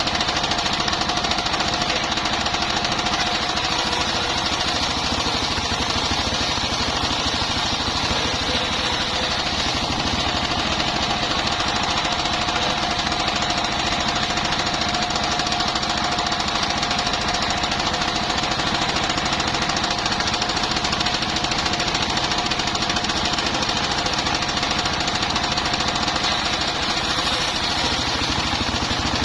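Engine-driven circular sawmill running steadily, its engine knocking in a fast, even rhythm under a constant high tone.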